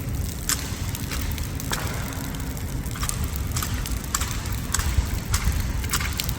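Heavy downpour: a steady low rumble of rain with many irregular sharp taps of drops striking.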